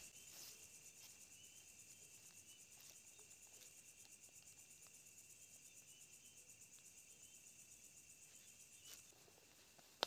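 Faint, steady chirring of crickets, evenly pulsing, with a few faint ticks.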